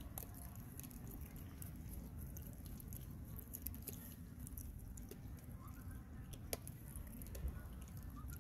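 Faint low rumble with scattered small clicks and taps.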